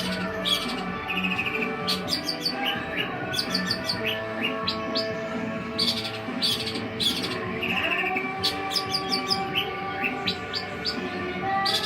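Long-tailed shrike (cendet) calling in rapid runs of sharp chirps and short trills throughout, over steady background music.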